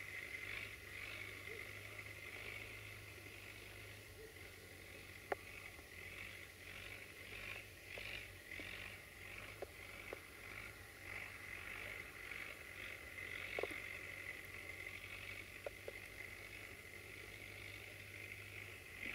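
Distant UTB Universal tractor's diesel engine running steadily under load while ploughing, a low hum, with a continuous busy chattering of bird calls above it and a few sharp clicks.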